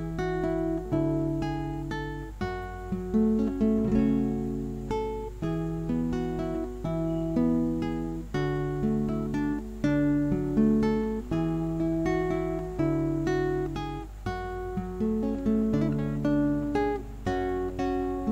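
Background music on acoustic guitar: plucked notes in a flowing melody, each note ringing out and fading.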